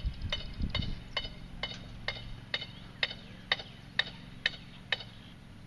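A series of about eleven sharp, evenly spaced clicks, roughly two a second, growing louder toward the later part and stopping just before the end.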